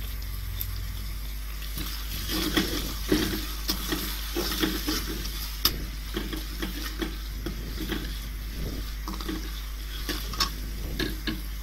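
A perforated metal ladle stirring and scraping onions, green chillies and mint frying in oil in an aluminium kadai, with irregular clicks of metal on the pan over a soft sizzle. The stirring starts about two seconds in.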